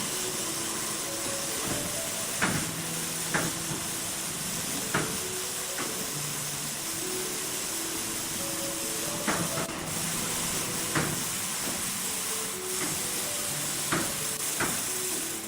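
A steady, loud hiss, with a quiet melody of short held notes and a sharp knock every second or two: background music laid over steady noise.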